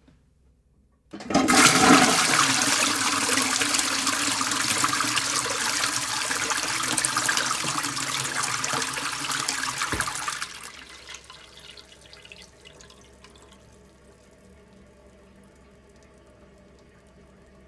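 Toilet flushing: after a faint click, a sudden loud rush of water lasts about nine seconds, with a short knock near its end. It then dies down to a much quieter, steady running of water.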